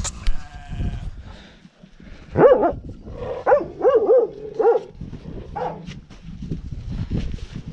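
A farm dog barking, about six short barks between roughly two and six seconds in.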